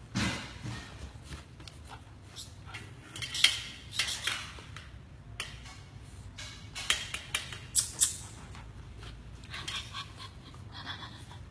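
Irregular clinks, taps and short scrapes of hard objects, loudest about three and a half seconds in and again around seven to eight seconds, over a low steady background hum.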